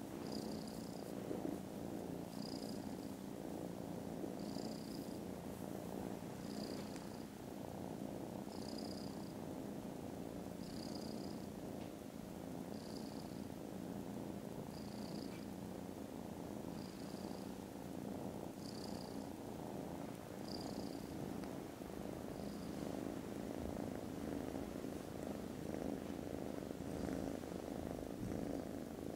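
Kittens purring loudly and steadily while being stroked, a continuous fast rumbling pulse.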